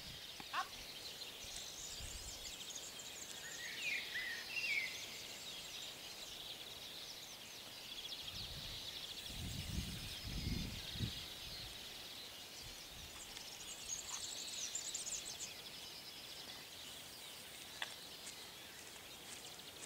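Outdoor garden ambience with small birds chirping and singing faintly in the background, and a few low rumbles about halfway through.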